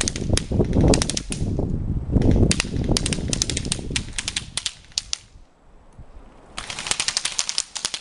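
Airsoft guns firing rapid full-auto bursts of sharp clicking shots: a long run of bursts through the first five seconds, a short lull, then another burst near the end. A low rumble on the microphone runs under the first half.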